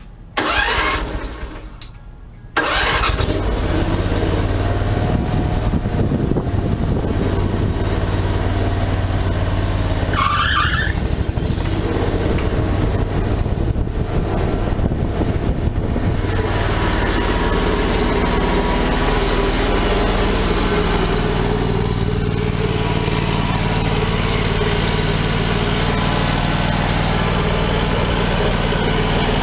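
Predator 670cc 22 hp V-twin engine on a stump grinder fires briefly about half a second in and dies away, then starts about two and a half seconds in and runs steadily. A short rising squeal comes about ten seconds in.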